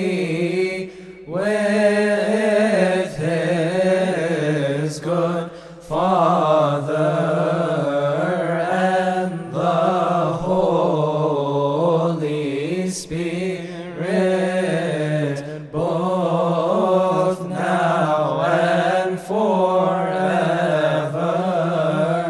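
Coptic hymn chanted as a long wordless melisma: a slow, wavering, ornamented vocal melody over a steady low held drone, broken by a few short pauses for breath.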